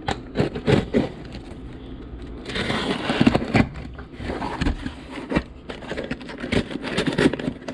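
A cardboard shipping box being torn open by hand: a run of sharp knocks, clicks and scrapes, with a longer tearing rasp about two and a half seconds in.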